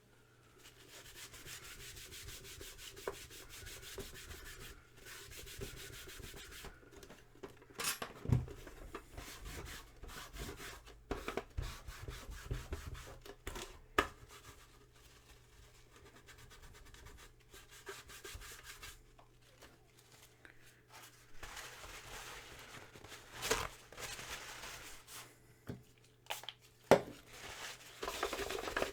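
Rubbing and scrubbing as a part of a Commodore Datasette tape deck is cleaned by hand, with a few sharp clicks and knocks in between.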